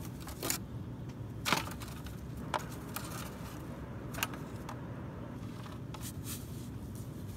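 Handling noise of a trapped coyote held on a metal catch pole: a handful of sharp metallic clicks and clinks with some scraping, the loudest about a second and a half in.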